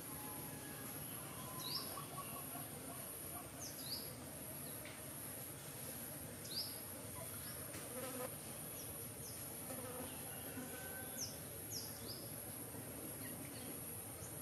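Steady high-pitched insect drone, with short high chirps falling in pitch every few seconds.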